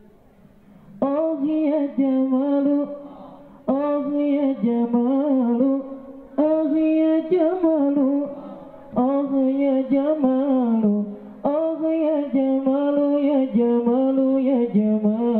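A single young voice singing an Arabic sholawat in long, ornamented phrases of about two to three seconds each, with short breaks between them, starting about a second in.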